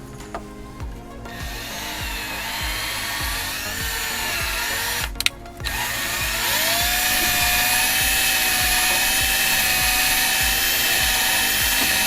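Electric drill spinning a .410 gun-cleaning bore brush to scrub out a corroded brake-caliper guide-pin bore. It starts about a second in with a whine that shifts in pitch, stops briefly around five seconds, then runs again louder with a steady whine.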